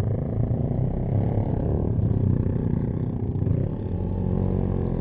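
Motorcycle engine running steadily under load on a steep uphill climb, heard from the rider's seat of a Honda sport bike.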